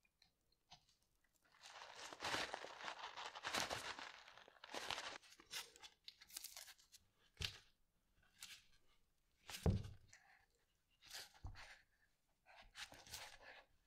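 Screw clamps with masking-tape-padded jaws being handled and fitted around a freshly glued wooden knife handle by gloved hands. A few seconds of continuous handling noise, then a string of separate knocks, the loudest a low thump about ten seconds in.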